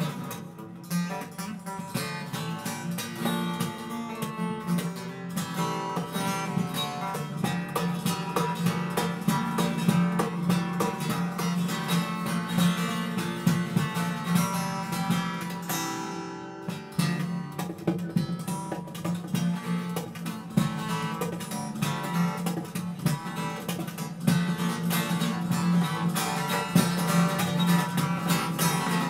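Amplified acoustic guitar played fast and hard on stage: rapid strumming and picked runs with sharp percussive strokes. It dips briefly a little past halfway, then builds again.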